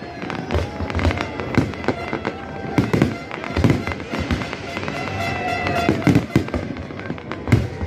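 Fireworks going off in quick, irregular succession, a string of sharp bangs with crackling between them, over music.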